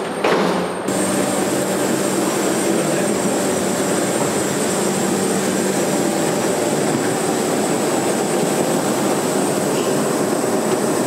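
Steady rushing noise with a thin high whine from a parked jet airliner's running turbine machinery, heard at the open boarding door. It sets in abruptly about a second in, after a brief knock.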